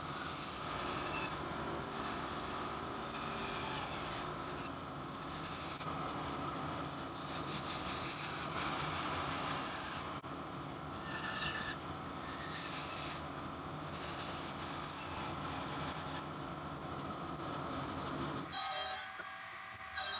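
Bandsaw running and cutting through a thick block of timber, a steady mechanical noise with a constant high tone. Near the end the sound drops away sharply.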